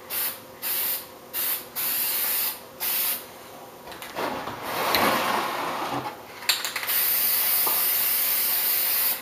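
Aerosol can of spray lacquer hissing in five short bursts, then, after some handling noise, one long continuous spray of about two seconds.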